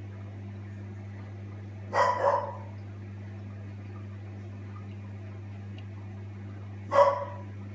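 Short bark-like calls from an animal: a double call about two seconds in and a single one near the end, over a steady low hum.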